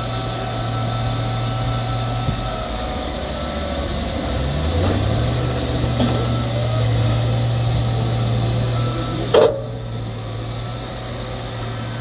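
Diesel engine of a grapple skidder working under load as it drags a turn of logs up onto the road, its pitch rising about halfway through and then holding steady. One loud metallic clank near the end.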